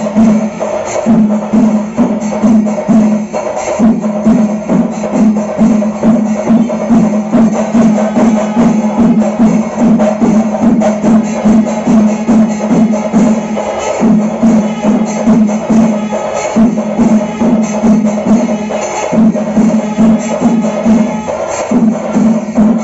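Kerala temple percussion music (chenda melam): many drums struck in a fast, dense rhythm, with a loud low held tone that breaks off and resumes every second or two.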